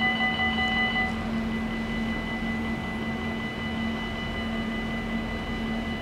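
Electric level-crossing bells ringing with a steady, ringing tone. Several of them fall silent about a second in as the barriers come fully down, and a fainter steady ring carries on.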